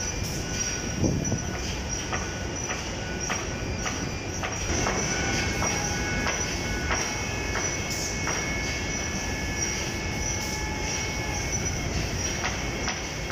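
Shipyard machinery noise: a steady industrial din with several high, steady whining tones that come and go and scattered sharp metallic clicks.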